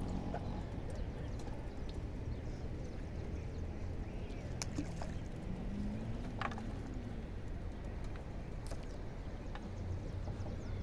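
A few light clicks as a longline's hooks and line are handled against a plastic crate while a knot is worked out of the line, over a steady low rumble.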